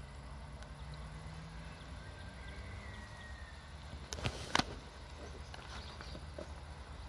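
Two sharp clicks about half a second apart, over a steady low rumble.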